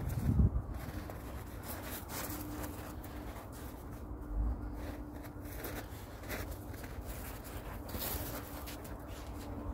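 Irregular crunching and scuffing of footsteps in fresh snow, with a low thump about half a second in.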